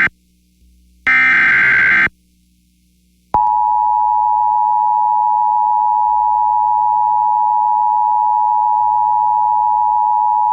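Emergency Alert System SAME header: a one-second burst of digital data tones about a second in, then after a pause the steady EAS attention tone begins about three seconds in, signalling that a tornado warning message follows.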